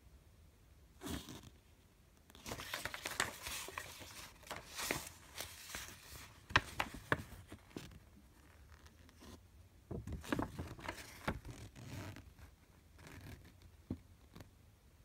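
A folded paper instruction leaflet being handled and unfolded: crackling paper rustle in irregular spells, the longest from about two to eight seconds in and another about ten seconds in.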